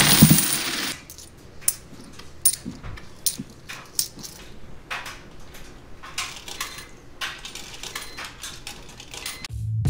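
Quarters poured out of a plastic bag onto a counter, a loud rush of coins that stops about a second in, followed by many separate metallic clicks as the scattered coins are picked up and stacked in the hand. Near the end, quarters are loaded into a coin-operated washer's quarter slide.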